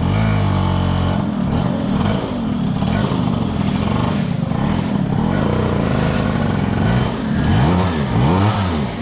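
Vespa SS90 scooter's two-stroke single-cylinder engine running hard under way, its pitch rising and dropping repeatedly as the revs climb and fall, with two quick rev rises and drops near the end.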